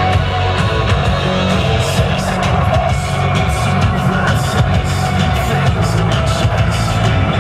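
Loud music with a steady beat and strong bass.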